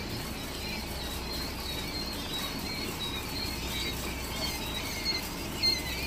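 Quail chicks peeping: many short, faint, high cheeps, more of them near the end, over a low steady hum.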